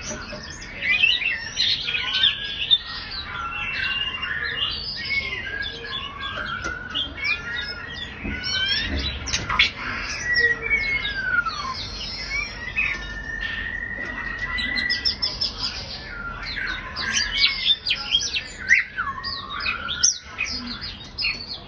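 Female white-rumped shama singing a long, varied song of clear whistles, sliding notes and short rattling notes, almost without pause, with one long level whistle about two thirds of the way through.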